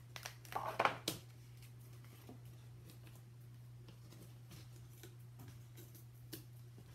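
Die-cut cardboard pieces being handled and fitted together: a few light taps and scrapes in the first second or so, then only an occasional faint tap over a low steady hum.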